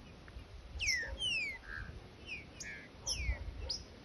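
Green-winged saltator (trinca-ferro) singing its 'grego boca mole' song: loud, clear whistled notes that slide downward, in two phrases about a second in and about three seconds in.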